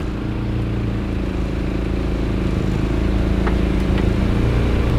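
Boat motor running steadily at speed, with a brief dip in pitch about four seconds in.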